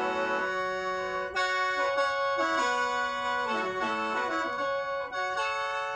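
Lao khaen, a bamboo free-reed mouth organ, played solo: a stepping melody over a held drone chord, with the chord changing about half a second in.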